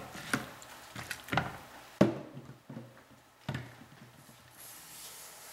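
Hands rubbing and turning raw chicken pieces coated in lime juice in a bowl, giving a few short wet squishes and light knocks about a second apart, which stop about three and a half seconds in.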